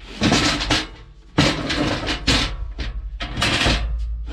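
Aluminum car ramp being lifted and shifted, its metal clattering and scraping in three or four rough bursts.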